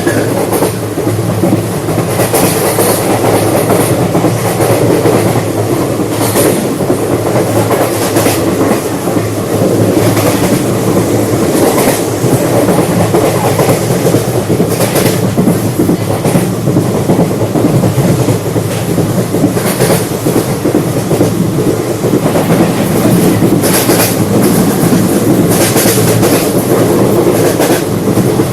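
Indian Railways express passenger coach running steadily at speed, heard from inside the coach: a continuous rumble of wheels on rail with clickety-clack over the rail joints and short hissing clatters every few seconds.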